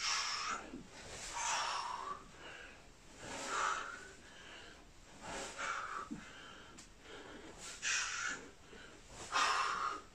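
A man's sharp, hissing breaths out as he throws kicks into the air, about six in ten seconds with quieter breathing between.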